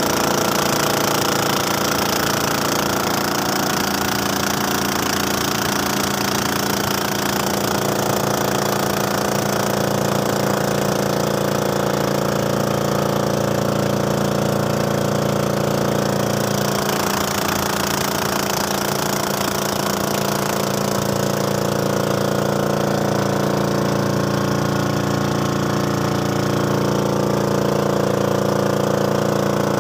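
A narrow motorboat's engine running steadily at speed, over a constant hiss of water rushing past the hull.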